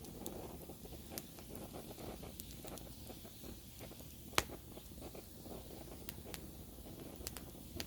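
Wood campfire burning: a low steady rush of flame with scattered small crackles, one sharp loud pop a little past the middle, and a couple more snaps near the end.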